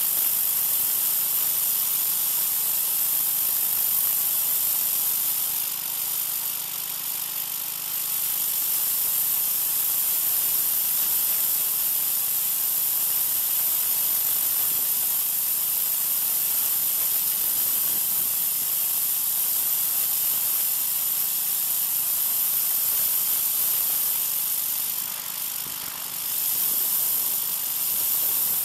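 Troy-Bilt 2200 psi gas pressure washer's oscillating-tip spray blasting a concrete sidewalk, a loud steady hiss with the washer's small engine running steadily underneath. The spray noise dips briefly about six seconds in and again near the end.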